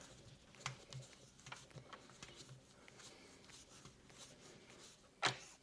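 Faint clicks and taps of plastic parts being handled as an intake silencer is fitted onto an air compressor, with one sharper click about five seconds in.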